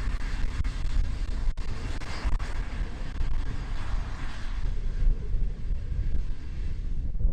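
Cessna Citation 501's Pratt & Whitney JT15D turbofan engines running at taxi power, a rushing jet hiss that fades about halfway through, over heavy wind buffeting on the microphone.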